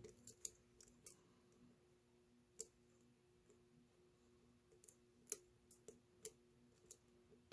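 Faint, irregular clicks and ticks of a lock pick working inside a solid brass Ace padlock's keyway, about a dozen scattered through, over a faint steady low hum.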